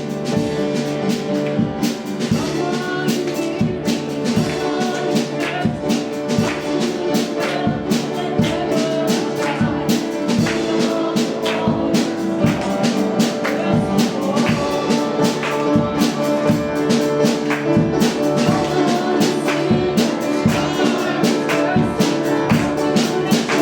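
Worship band music: piano-led, with a steady drum beat.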